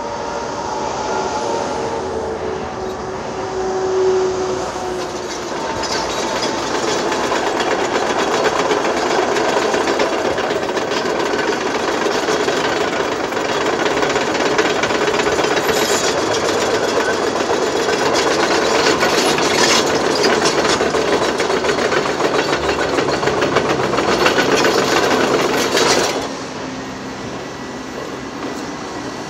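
Heavy construction machinery at work: a loud, steady, noisy din with scattered knocks that swells over the first few seconds and cuts off suddenly about 26 seconds in.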